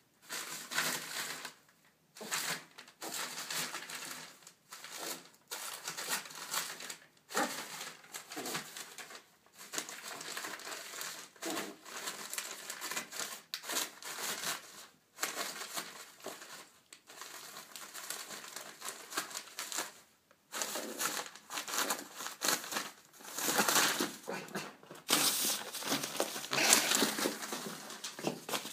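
Newspaper crumpling and rustling in irregular bursts as a teacup Yorkshire terrier grabs and shakes the sheets, loudest in the last few seconds.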